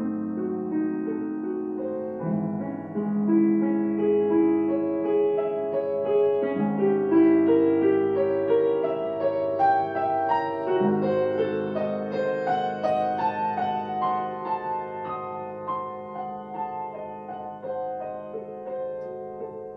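Grand piano played solo in a classical piece: held bass notes change every few seconds under many notes climbing higher, swelling to its loudest about a third of the way in, then easing a little.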